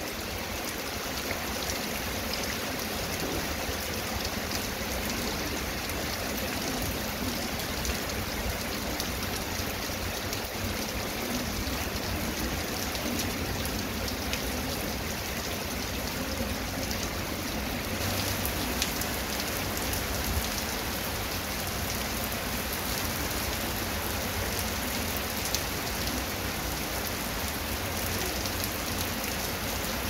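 Steady heavy rain falling on a wet concrete path and grass, an even hiss with a few louder drops.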